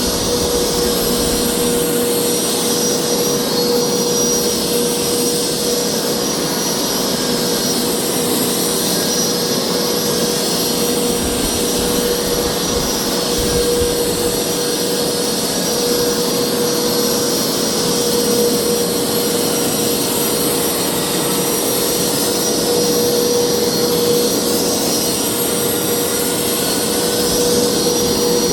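Hoover carpet cleaner running steadily, its motor giving a constant whine with a steady hum.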